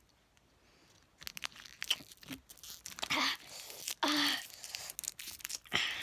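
Crinkling and crackling of a candy wrapper handled close to the microphone, starting about a second in, with a few short strained vocal sounds mixed in.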